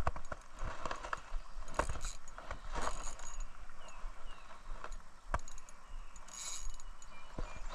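Ultralight spinning reel being cranked while fighting a hooked fish, with irregular mechanical clicks and knocks.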